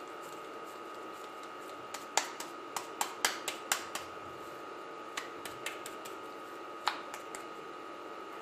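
Hands patting and pressing a ball of minced pork and beef between the palms, flattening it into a patty: a run of short slaps and clicks, bunched from about two to four seconds in, then a few scattered ones.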